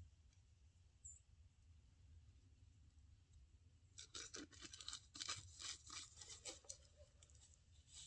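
Faint crackling and tearing of a plastic drink-mix package being opened by hand, starting about halfway through as a quick run of rustles.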